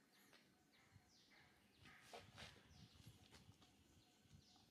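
Near silence: faint outdoor ambience with a few faint, high, downward-falling chirps and soft rustles.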